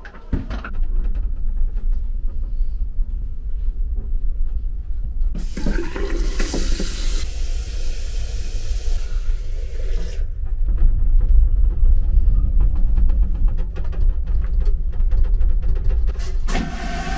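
Toilet in a moving train's restroom flushing with a loud rushing whoosh about five seconds in that tails off over several seconds, and another rush near the end. Under it runs the steady low rumble and rattle of the moving train.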